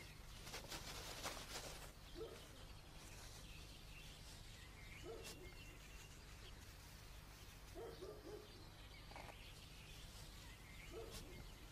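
Faint outdoor ambience: short low calls and small high chirps of birds now and then, over a steady low hum, with some rustling in the first two seconds.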